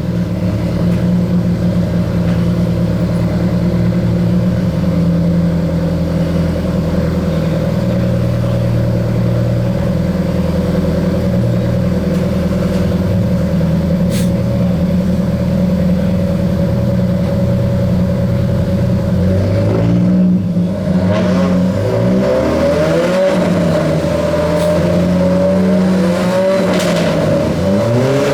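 Alfa Romeo 4C's turbocharged 1.75-litre four-cylinder engine running loud and steady at idle, then about 20 seconds in revving up and down repeatedly as the car moves off.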